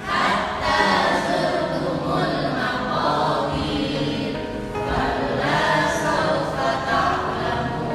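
Music with a choir of many voices singing.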